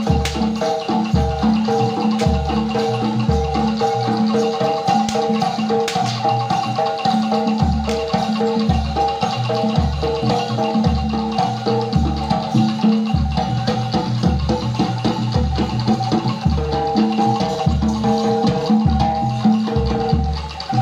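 Jaranan music from a gamelan-style ensemble: metallophones ring a repeating melodic pattern over deep drum strokes about once a second, with small percussion.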